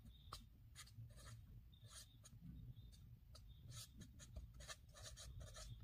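Felt-tip marker writing on paper: a faint run of short scratchy strokes as letters and a symbol are drawn, coming quicker toward the end.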